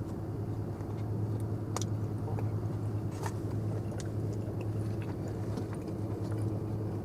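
Car engine idling, heard as a steady low hum inside the cabin, with a few faint clicks and rustles from handling the food.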